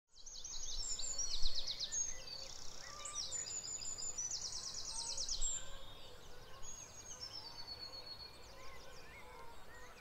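Dawn chorus of several songbirds singing together. Loud, fast, high trills stand out in the first half, and the song grows fainter after about five and a half seconds.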